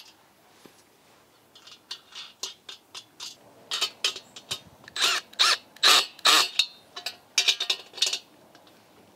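Small metal nuts, bolts and washers clinking and rattling in quick, irregular bursts with a bright metallic ring, starting faint and getting louder from about two seconds in.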